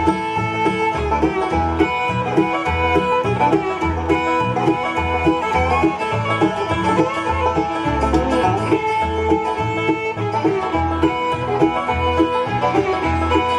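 Bluegrass music: an instrumental break between verses, with rapid banjo picking and guitar over a steady bass beat.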